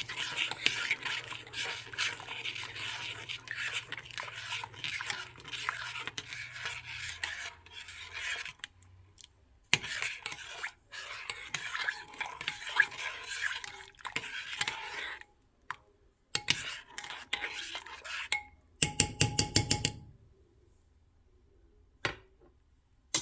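A spoon stirring jelly powder into hot water in a pot, scraping and clinking against the pot's sides in long spells with short pauses. Near the end comes a fast rattling run of knocks lasting about a second.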